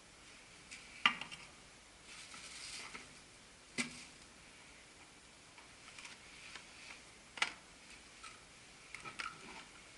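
Tools and hard parts being handled during motorcycle maintenance: a few sharp clicks and clinks spaced seconds apart, the loudest about a second in. A short rustle comes about two seconds in.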